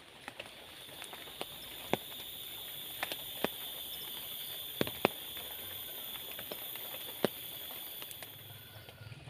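Steady high-pitched chirring, typical of night insects, with scattered sharp ticks and taps, the loudest about five seconds in; a faint low hum comes in near the end.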